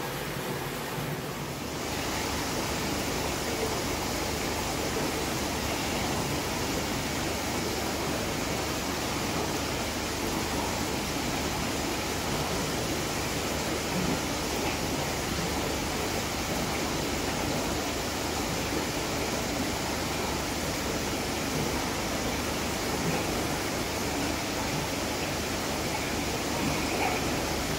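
Steady rushing, water-like noise of aquarium tank equipment, water moving and bubbling without a break. It fills out and gets slightly louder about two seconds in.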